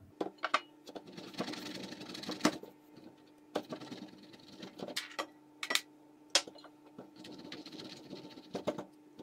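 Cheese being grated on a stainless steel box grater: rasping strokes broken by a series of sharp taps. A faint steady hum runs underneath.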